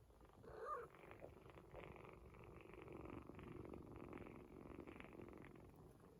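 Domestic cat purring faintly and steadily, after a short pitched call under a second in.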